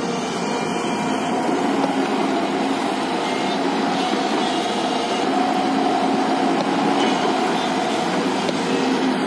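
JCB tracked excavator's diesel engine running steadily while the machine dumps sand and swings round.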